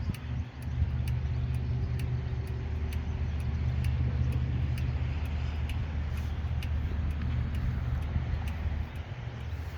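A passing boat's engine running with a steady low drone that eases off near the end, with faint regular ticking above it.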